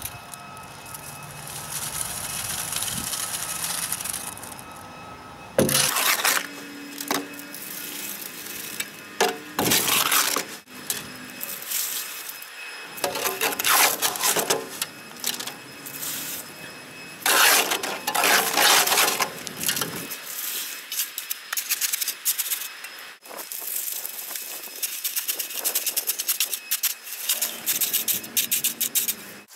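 A shovel scraping and scooping wet concrete mix out of a wheelbarrow and packing it into a post hole around a wooden post. It comes as repeated, irregular scraping strokes with short pauses between them.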